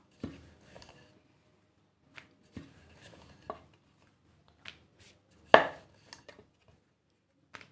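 Wooden rolling pin rolling dough out thin on a wooden board: a series of irregular wooden knocks and clacks as the pin meets the board, with faint rubbing between them. The loudest knock comes a little past halfway.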